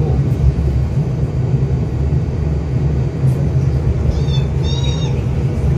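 Steady low rumble of the tram running on board. Two short high-pitched cries come about four and five seconds in.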